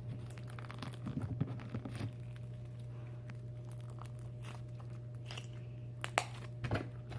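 Hands kneading and squishing slime mixed with plastic star confetti, giving short runs of crunchy, crackly clicks about a second in and again near the end. A steady low hum runs underneath.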